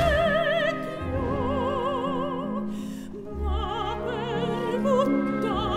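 Background music: an operatic voice singing long held notes with wide vibrato over low sustained accompaniment.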